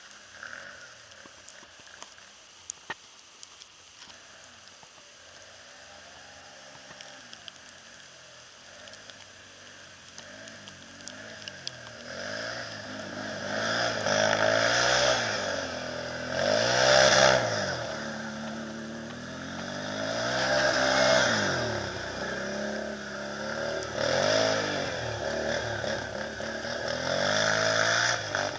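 Can-Am Renegade 500 ATV's single-cylinder engine revving in repeated throttle bursts, its pitch rising and falling with each one as the quad spins its tires through deep snow. It is faint and distant at first, then close and loud from about halfway through.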